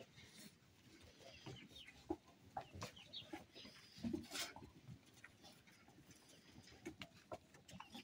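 Faint, scattered barn sounds of penned fattening lambs at their feed: soft rustling and small knocks, with a few short high chirps.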